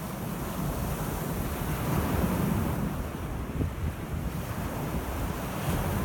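Small Lake Michigan waves washing onto a pebble beach, one swelling in about two seconds in, with wind rumbling on the microphone.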